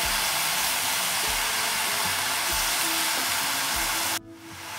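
Beef and chunks of radish and carrot sizzling in a hot enameled cast-iron pot as they are stir-fried with a spatula, with a few soft thumps. The sizzle cuts off suddenly near the end.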